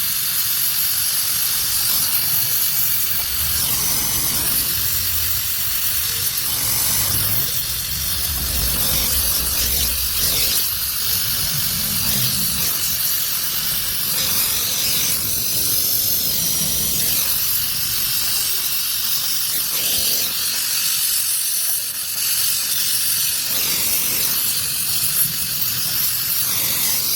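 Gas welding torch flame hissing steadily while aluminium is welded.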